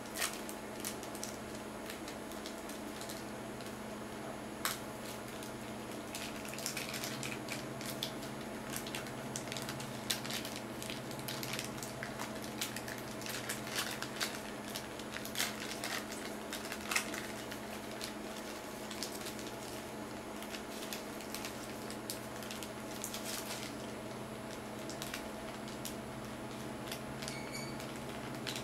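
Clear plastic film packaging and a paper sheet being handled: scattered crinkles and small clicks, busiest in the middle. A steady low hum sits underneath.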